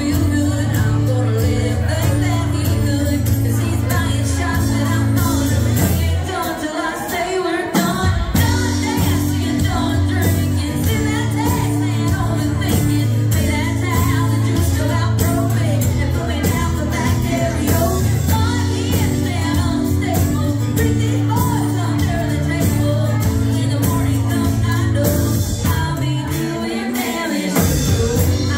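Live country band playing a song with acoustic guitars, drums and singing. The low notes drop out briefly about six seconds in and again near the end.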